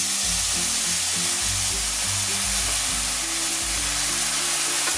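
Soy sauce sizzling steadily as it hits a hot frying pan of fried chicken, hot dog slices and bell pepper, stirred with a wooden spoon. Background music with bass notes plays along.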